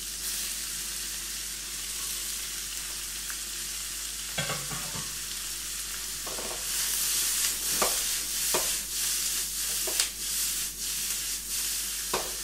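Sliced onions and red bell pepper strips sizzling in a hot wok over a gas burner while being stir-fried, with several sharp knocks of the utensil against the wok. The sizzle grows louder a little past halfway through.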